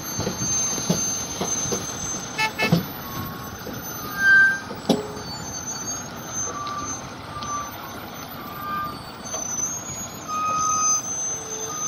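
Heavily loaded multi-axle Ashok Leyland goods truck running slowly past and around a sharp bend, its diesel engine and tyres making a steady rumble. There are a few sharp knocks about two and a half seconds in, and short high chirps or beeps come and go.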